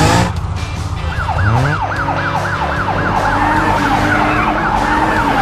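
Emergency-vehicle siren in a fast yelping wail, about three rises and falls a second, starting about a second in, after a vehicle engine revs up.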